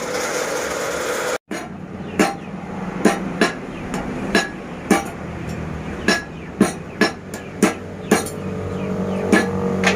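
Hammer blows on hot metal at a blacksmith's anvil: about a dozen sharp strikes at an uneven pace, each with a short metallic ring. Before them a steady mechanical noise runs for about a second and a half, then cuts off abruptly.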